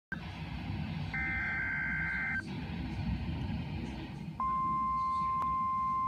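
A Midland weather radio's speaker plays a burst of digital alert data of about a second, two alternating tones, over faint radio static. About four seconds in, the steady NOAA Weather Radio warning alarm tone starts and holds, marking the start of the required weekly test broadcast.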